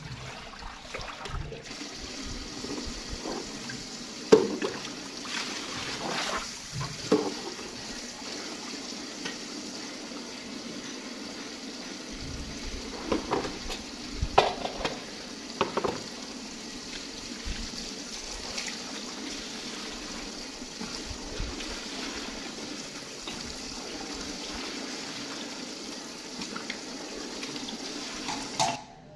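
Tap water running steadily and splashing into a bucket and basin, with a few knocks of a steel bowl and plastic basin being handled, the loudest about four seconds in. The running water stops abruptly near the end.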